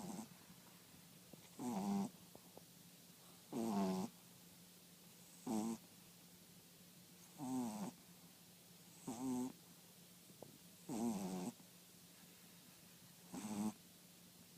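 French bulldog snoring, one short pitched snore about every two seconds, eight in all. This kind of snoring is typical of the breed's short-nosed airway.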